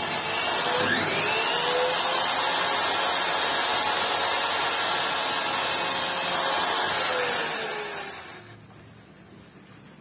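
Electric miter saw running and cutting through a strip of wood: a loud, steady motor whine mixed with the blade's cutting noise. About three-quarters of the way through, the motor is switched off and winds down, its whine falling in pitch as it fades.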